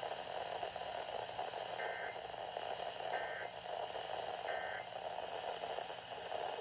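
Emergency Alert System end-of-message code: three short two-tone digital data bursts about a second and a half apart, over steady radio static.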